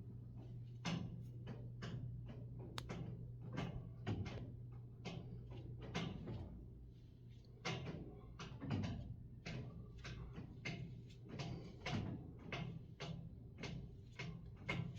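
Soft clicks, scratches and knocks, about two a second with a short lull about halfway, over a steady low hum.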